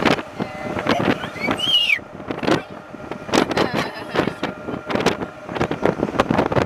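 Small open-sided vehicle driving along a road, with wind gusting and buffeting the microphone in irregular bursts over a faint steady running tone.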